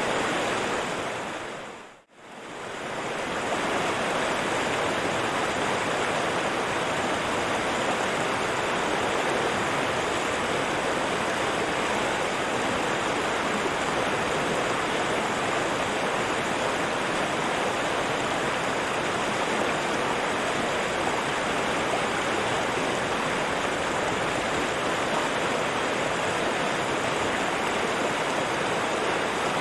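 River water rushing in a steady, even stream. About two seconds in it fades briefly to near silence and swells straight back.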